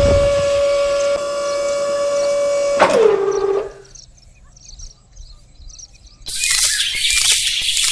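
Small electric motor of a DIY miniature tractor running with a steady high whine. About three seconds in there is a click, and the motor winds down, falling in pitch until it stops. Near the end comes a loud hiss lasting about two seconds.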